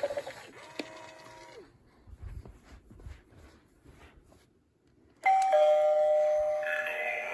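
Gemmy animated eyeball doorbell Halloween prop. A previous electronic clip fades out, followed by a few seconds of near quiet with faint clicks. About five seconds in, a loud electronic doorbell chime starts suddenly from its small speaker, and its tones change near the end.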